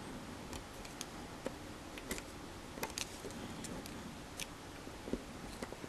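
Light, irregular clicks and taps of chopsticks against small plastic Gunpla parts as a piece is pressed into place.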